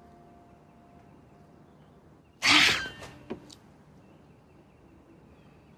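A person's sudden, sharp breathy exhalation, about half a second long, a little over two seconds in, followed by a faint click; the rest is quiet room tone.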